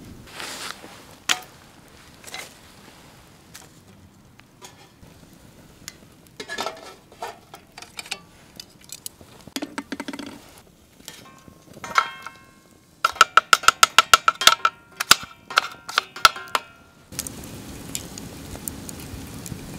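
Twigs crackling in a small folding wood stove, with scattered sharp cracks. About two-thirds of the way in comes a rapid run of loud, ringing metal-on-metal clinks from the cookware, lasting a few seconds, and after it a steady hiss.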